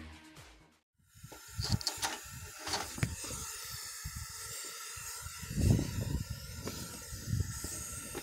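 Wood fire burning in a steam boiler's firebox with the blower on: a steady hiss with sharp crackles and irregular low thumps.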